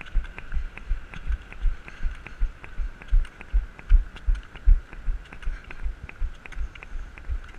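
Steady rhythm of running strides close to the microphone: deep thumps about three a second, each with a light click, over a faint steady tone.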